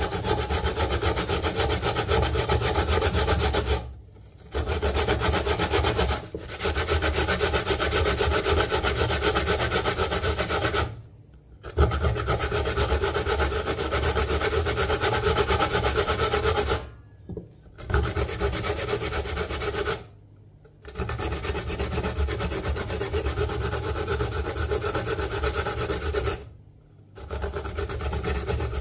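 Coconut grated by hand on a metal grater: fast, continuous rasping strokes in long runs, broken by several short pauses.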